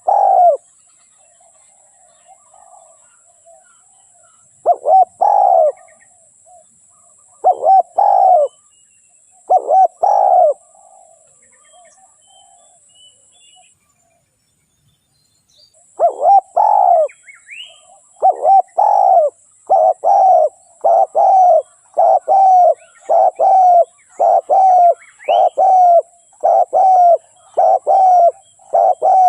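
Spotted dove (tekukur) cooing: spaced pairs of low coos at first, then after a short silence a fast, even run of coos at about one and a half a second. Faint chirps of small birds and a steady high hiss lie behind.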